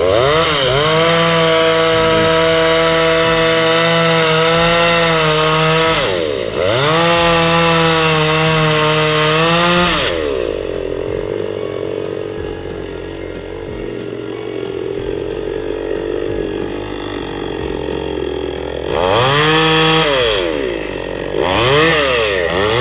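Petrol two-stroke chainsaw revved to full throttle and held for several seconds, twice. It drops back to a lower idle for a long stretch in the middle, then gives two more short bursts of full revs near the end.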